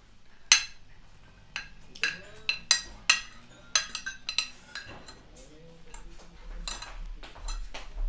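Metal cutlery clinking and scraping against ceramic dinner plates during a meal: a string of irregular sharp clinks, the loudest about half a second in and at about three seconds.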